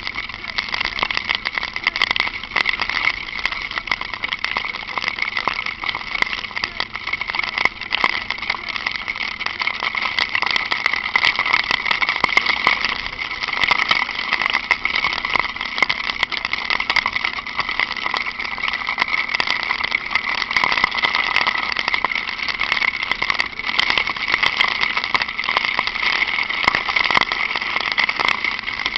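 Honda Falcon 400 single-cylinder motorcycle running on the road, its engine under a steady rush of wind and road noise, with many small clicks scattered throughout.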